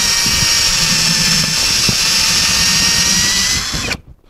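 WOSAI 20V WS-MD13 brushless cordless drill running under load, boring into a wooden beam with a hole saw: a steady motor whine that rises slightly in pitch, with rough low rumbling from the cut. It stops abruptly near the end.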